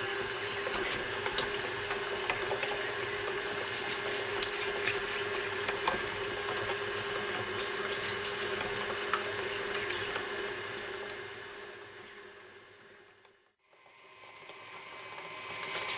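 Electric kitchen mixer running steadily on a medium setting, stirring banana bread batter with an even motor hum. The hum fades away to silence about three-quarters of the way through, then starts to fade back in.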